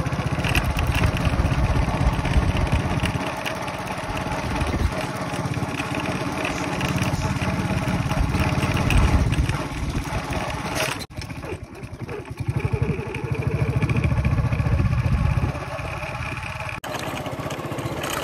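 Motorcycle engine running while being ridden, pulling harder in stretches and easing off in between, with abrupt breaks in the sound twice.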